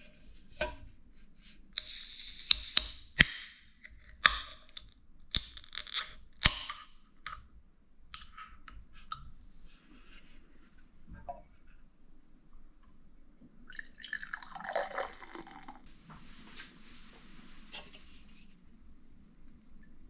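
Ring-pull tab of a beer can cracked open with sharp clicks and a hiss of escaping gas, then a few more clicks. Later, beer is poured from the can into a glass, splashing and fizzing.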